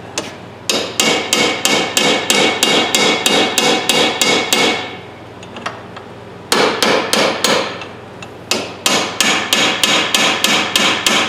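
Hammer tapping a punch against a rust-seized ratchet head clamped in a steel vise, in three quick runs of about four ringing metal blows a second with short pauses between. He is trying to drive out parts that rust has locked up.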